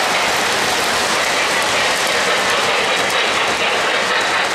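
O-gauge model freight train, led by a Lionel 2-8-0 consolidation steam locomotive, running steadily past on three-rail track: a continuous rolling noise of its wheels on the rails.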